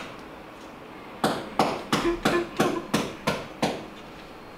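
Sharp knocks of a hand striking a small pepper jar to shake ground pepper out of it, about three a second; they start about a second in and stop shortly before the end.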